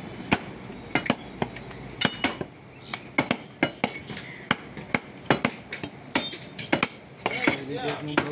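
Heavy curved cleaver chopping beef on a wooden stump block: sharp, irregular chops, about two a second.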